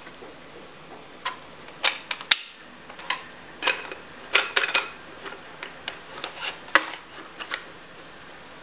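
Hard plastic parts clicking and tapping as a 3D-printed extruder disk is fitted into a plastic sausage-stuffer barrel. It is an irregular run of sharp clicks and knocks over about six seconds, with a few quick clusters.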